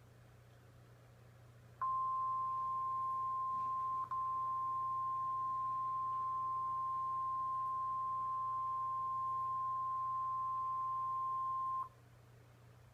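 NOAA Weather Radio warning alarm tone, the 1050 Hz attention signal that comes before a broadcast watch or warning. It is one steady high-pitched beep that starts about two seconds in and lasts about ten seconds, with a brief dip about four seconds in.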